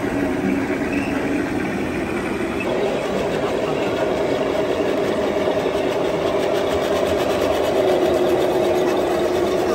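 Radio-controlled model tank's electric drive motors and gearboxes whining steadily as it drives, stepping up in pitch about three seconds in.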